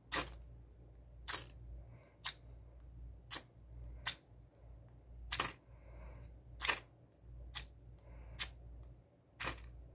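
Ferrocerium rod struck with a ceramic striker: about ten sharp scrapes, roughly a second apart, throwing sparks to light oil-soaked jute twine.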